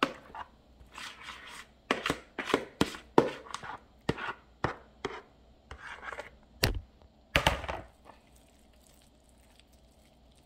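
A metal spoon scraping a bowl and dropping moist cornbread dressing into a glass baking dish: a run of irregular scrapes, soft plops and taps, with one sharper knock near the middle. The sounds stop about eight seconds in.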